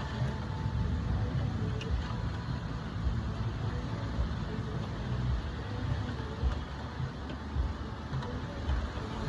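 Heavy storm rain with gusting wind: a steady rushing hiss over a low, uneven rumble.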